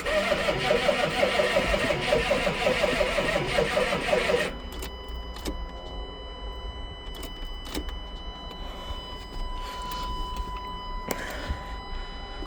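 A 6.5-litre V8 diesel being cranked by its starter for about four and a half seconds without firing, pulsing evenly as it turns over, then the starter stops suddenly, leaving a faint steady tone and a few clicks. It is a cold start after a winter of sitting, with batteries too weak, in the owner's view, that need a jump.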